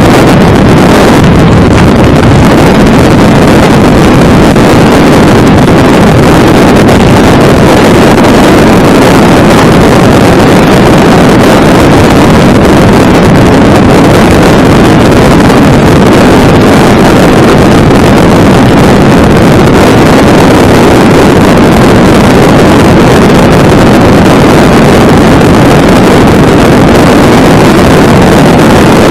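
Very loud, steady rushing wind noise overloading the microphone without a break, as strong storm winds buffet the chase vehicle.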